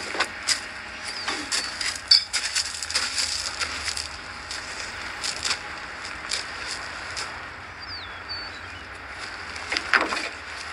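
Scattered light knocks and rustles of a nylon lifting sling being handled and pulled against the aircraft's aluminium skin, over a steady outdoor hiss.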